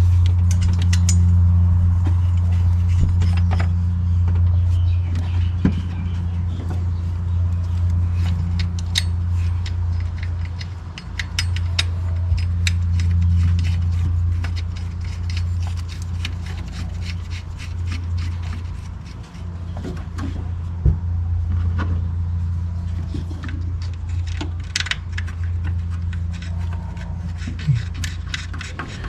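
Scattered sharp metallic clicks and clinks of hand tools, a wrench and ratchet, working on the bolts of the diverter valve's pipe. Underneath runs a steady low hum, the loudest sound throughout.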